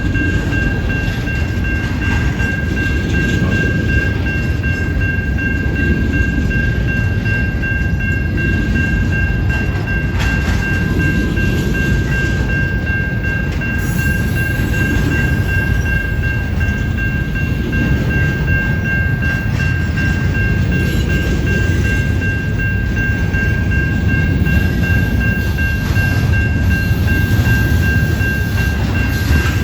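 CN intermodal freight train rolling past on the rails: a heavy, steady rumble of the cars with a constant high-pitched whine over it.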